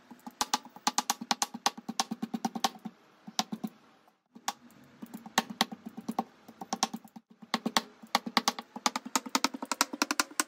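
Kitchen knife chopping cooked chicken on a wooden cutting board: a fast run of knocks as the blade strikes the board, with short breaks about four seconds in and about seven seconds in.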